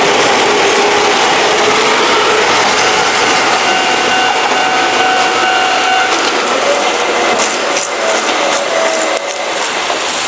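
Izu-Hakone Railway Sunzu Line train passing over the level crossing: steady wheel-on-rail running noise with a faint high squeal for a couple of seconds midway, and a cluster of sharp clicks near the end as the noise eases slightly.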